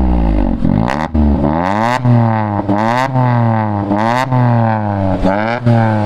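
Tata Altroz's 1.2-litre three-cylinder engine running on petrol, revved repeatedly through an aftermarket valvetronic exhaust. The pitch climbs and falls about once a second, with several sharp cracks along the way.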